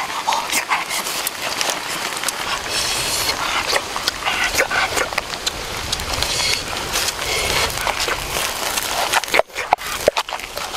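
Wooden pestle pounding and stirring shredded green papaya salad in a mortar: a dense, wet, crunchy rustle, with sharper separate knocks of the pestle against the mortar from about nine seconds in.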